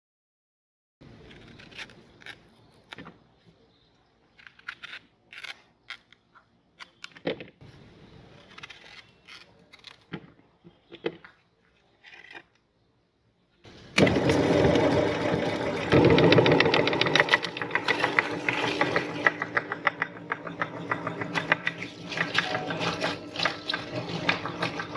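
Electric meat grinder: first a series of separate clicks and knocks, then about halfway through its motor starts and runs loudly and continuously with a fast chattering rhythm as it grinds bananas.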